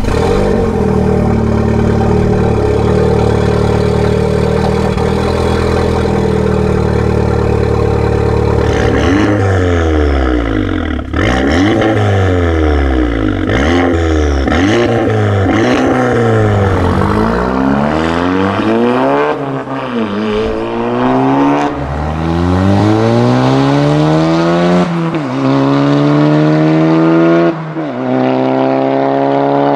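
Audi S1's 2-litre turbocharged four-cylinder engine running through its exhaust. It idles steadily, then from about nine seconds in it is revved again and again, at first in quick blips and later in longer rises to higher revs that drop back sharply.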